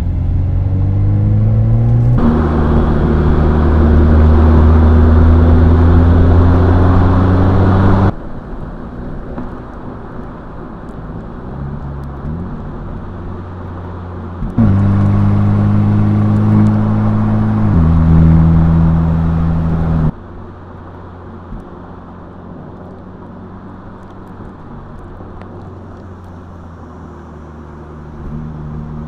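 Mercedes-AMG SL 43's turbocharged 2.0-litre inline-four engine pulling under acceleration, its note rising in pitch with gear changes. It drops abruptly to quieter steady cruising twice.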